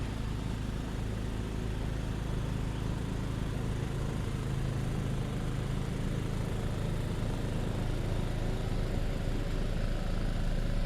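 Car engine and road noise, a steady low hum that grows slightly louder over the stretch.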